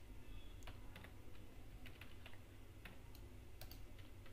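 Faint, irregular clicks of computer keyboard keys being typed, over a low steady hum.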